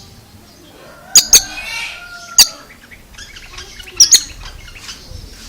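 Oriental magpie-robin (kacer) calling: loud, sharp high chips, mostly in pairs, about a second in, near the middle and about four seconds in, with a short scratchy warble and whistled notes after the first pair.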